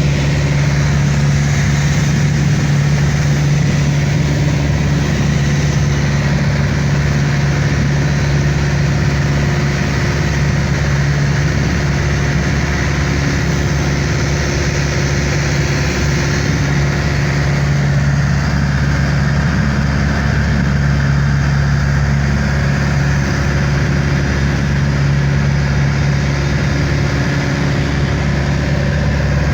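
Steady drone of a passenger airliner's engines and rushing air heard inside the cabin: a constant low hum with a hiss over it, unchanging throughout.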